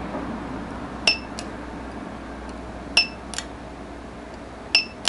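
Battery-powered spot welder firing three times, about two seconds apart: each weld gives a sharp metallic snap with a brief ring, followed by a softer click.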